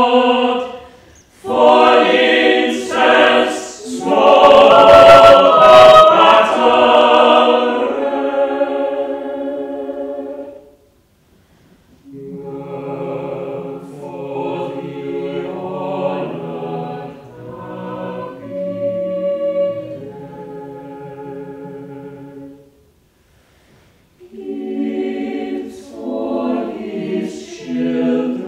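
Mixed-voice chamber choir singing in harmony: a loud passage, then a softer one after a short break about eleven seconds in, and another phrase beginning after a second brief pause near the end.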